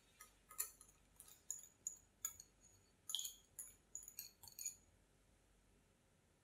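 A wire whisk clinking and scraping against glass bowls while plain yogurt is scraped out of a small glass bowl into the mixing bowl: about a dozen quick, light, ringing clinks that stop about five seconds in.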